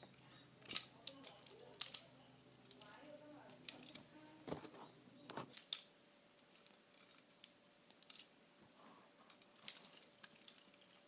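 Butterfly knife comb being flipped open and closed, its handles clicking and clacking together in irregular sharp clicks.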